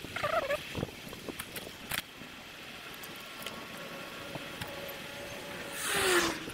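Sped-up action-camera audio from a bicycle ride: steady road and wind noise with scattered clicks and rattles. About six seconds in comes a loud rushing swell with a falling tone.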